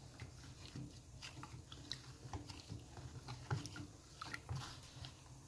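A spoon stirring a cornmeal-and-cold-water slurry in a plastic tub, making faint, irregular wet clicks and scrapes.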